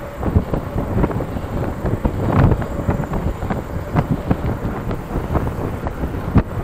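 Wind buffeting the microphone on a moving mountain bike, with many irregular knocks and rattles from the bike on a rough surface.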